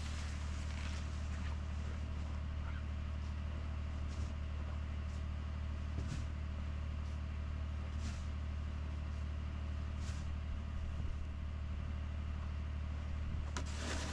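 A 2021 Ford F-150 PowerBoost's 3.5-litre twin-turbo V6 idling steadily during its cold-start warm-up at about −21 °C. A snow shovel scrapes the driveway near the end.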